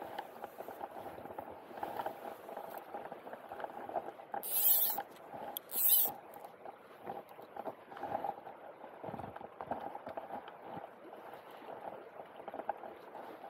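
Shallow river riffle running and gurgling over stones, with two short, loud hissing swishes about four and a half and six seconds in.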